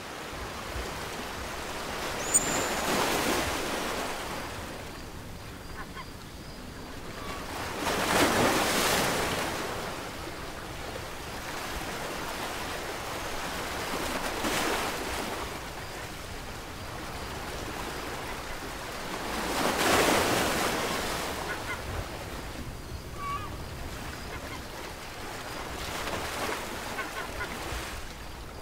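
Ocean surf, waves washing in and swelling about every six seconds, with a few faint short calls over them.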